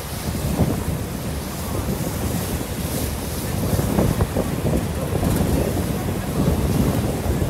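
Wind buffeting the microphone on a moving boat, in irregular gusts, over the rush of water.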